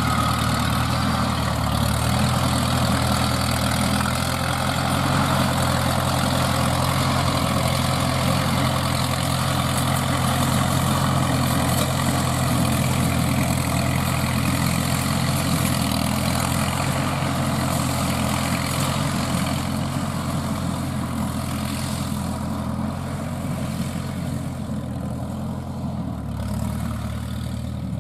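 Engine of a homemade crawler-track rotary tiller running steadily under load while its rotary tiller churns dry soil. The sound eases a little in the last several seconds.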